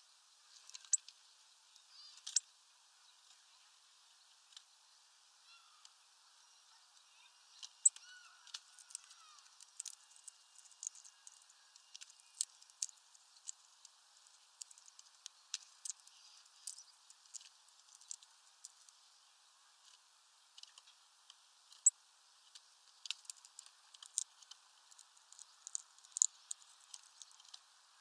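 Irregular sharp, high-pitched ticks and clicks from birds at a feeder, a hawfinch among them, coming thicker from about eight seconds in.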